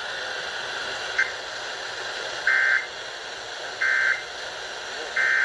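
Weather radio EAS/SAME end-of-message code: three short, identical bursts of buzzing digital data tones about 1.3 seconds apart, over steady radio static hiss, marking the end of the warning broadcast. A faint click about a second in.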